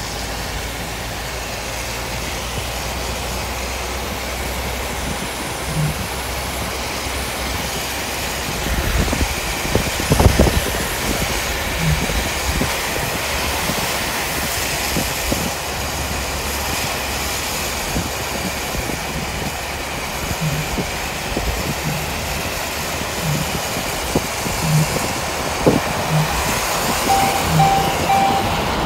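Steady road and tyre noise of a moving car, heard inside the cabin, with a few low thumps, the strongest about ten seconds in.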